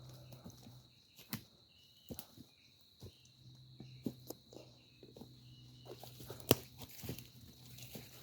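Footsteps crunching through woodland leaf litter: irregular crackling steps, with a sharper crack about six and a half seconds in.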